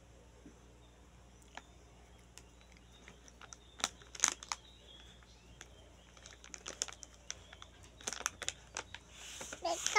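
Plastic snack bag crinkling in short, irregular crackles as it is handled, starting a few seconds in and getting busier toward the end.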